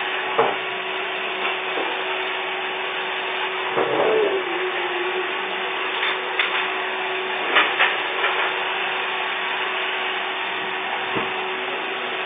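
Vacuum cleaner running steadily, its motor giving a constant hum under a broad whooshing noise, with a few scattered knocks and clacks.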